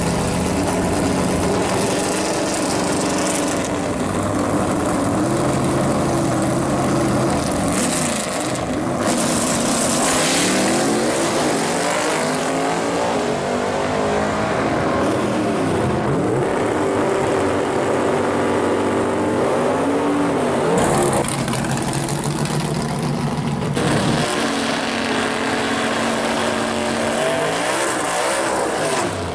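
Drag-race V8 engines of a 1965 Pontiac GTO fat-tire drag car and the car beside it: loud rumbling at the line, then full-throttle runs, the pitch climbing and dropping back several times as the cars accelerate down the strip.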